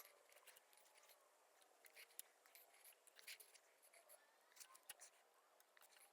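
Near silence with faint scratching and scattered light clicks, the sound of hands working leather and waxed thread.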